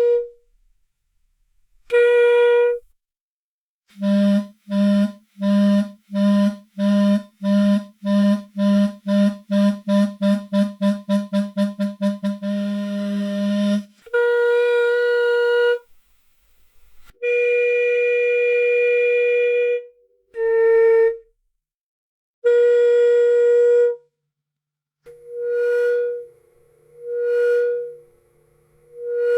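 Electrical hum sound effect: a buzzy electronic tone cutting on and off. About four seconds in, a lower buzz starts pulsing, faster and faster, until it runs into one continuous buzz; then come longer buzzes, and near the end pulses that swell and fade.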